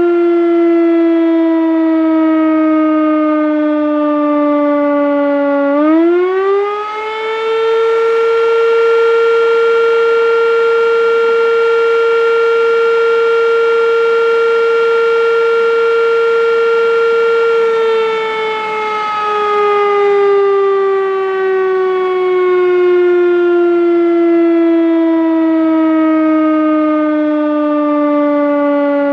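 1938 Sachsenwerk L234 air-raid siren sounding. Its pitch sinks slowly, climbs quickly to a high steady tone about six seconds in, holds it for about twelve seconds, then slowly winds back down.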